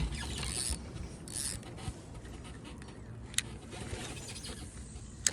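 Fishing reel and rod being worked while playing a fish: two short rasping bursts in the first second and a half, then two sharp clicks, one about three and a half seconds in and one at the end.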